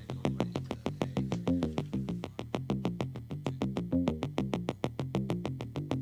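Background synthesizer music with a quick, steady clicking beat over a stepping bass line.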